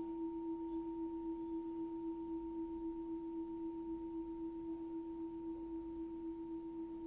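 A struck mindfulness bell ringing out: one long, steady low tone with a fainter higher overtone, slowly fading and wavering slightly in loudness as it decays.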